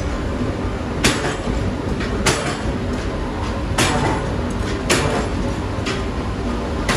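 Metalworking workshop noise: a steady low machinery rumble with sharp metal clanks, five of them, spaced about one to one and a half seconds apart.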